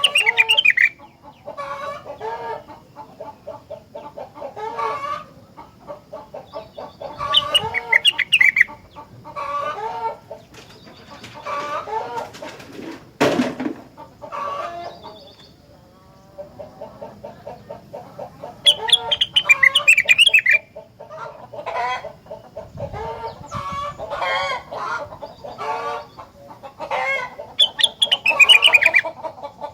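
Rengganis songbird singing hard, in repeated bouts of rapid, chattering warbled notes a few seconds long with short pauses between them. A single sharp knock sounds about halfway through.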